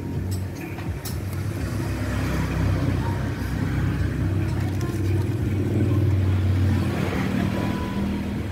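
A motor vehicle's engine running steadily, getting louder over the first couple of seconds and then holding, with a few light clicks near the start.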